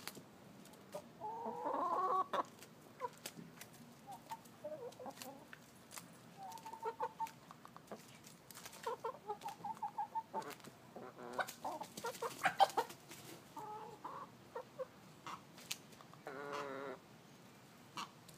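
Chickens clucking and calling close by: runs of short, quickly repeated clucks, with a louder call about two seconds in and another held call near the end. A few sharp clicks are scattered through.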